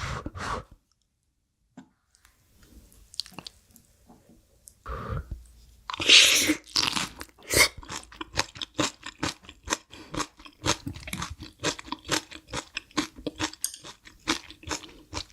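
Close-miked crunchy chewing of food. A sharp, crisp bite about six seconds in is the loudest sound, followed by a quick run of crunching chews.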